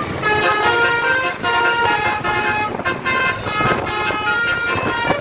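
Basuri musical horn, the Indonesian telolet-style multi-tone bus horn, playing a tune of short stepped notes that change pitch every fraction of a second, with brief breaks between phrases.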